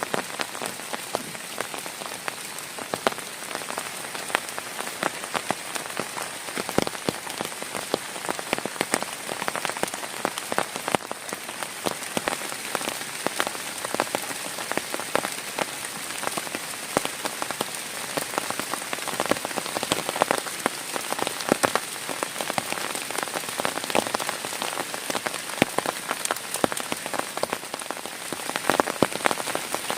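Heavy rain falling steadily, with a dense, irregular patter of individual drops striking a surface close by.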